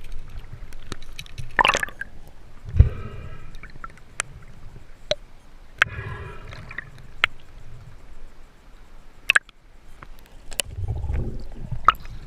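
Water gurgling in a river rapid, with sharp clicks and knocks scattered throughout and a few short, pitched gurgling bursts.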